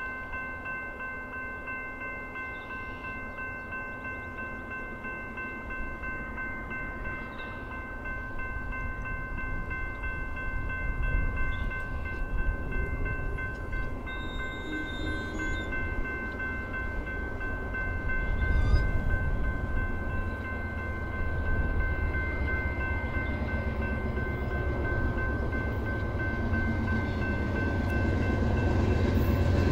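Level-crossing electronic bell ringing steadily with several high tones as the crossing signals activate. Under it, the low rumble of an approaching VIA Rail GE P42DC diesel locomotive grows louder toward the end.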